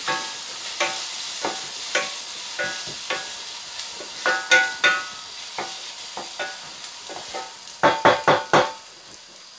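Sliced onions sizzling in hot oil in a stainless steel pan as they sauté, stirred with a wooden spatula. The spatula knocks and scrapes the pan roughly once a second, each stroke leaving a short metallic ring, with a quick run of strokes near the end.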